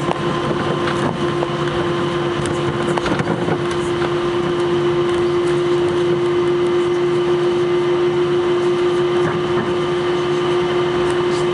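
Airbus A321 cabin noise while taxiing: a steady hum with one strong constant tone from the running engines and cabin air, and a few faint clicks in the first few seconds.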